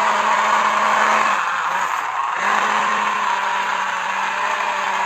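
Orange plastic toy excavator giving off a steady, loud mechanical whirr with a held buzzing tone as it is worked by hand. The sound breaks off for about a second partway through and then resumes.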